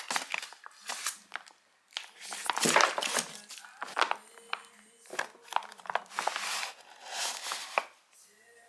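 Plastic packaging crinkling and rustling as it is handled and opened, in repeated bursts with sharp clicks between them, stopping near the end.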